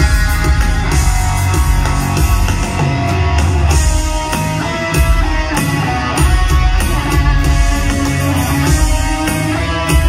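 Live rock band playing loudly, led by electric guitars over drums, recorded from the audience.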